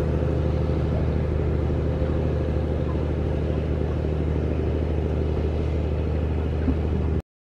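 Small passenger ferry's engine running steadily under way, a low even drone that cuts off abruptly about seven seconds in.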